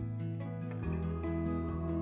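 Calm instrumental background music: held low notes that shift about a second in, under a light run of short higher notes.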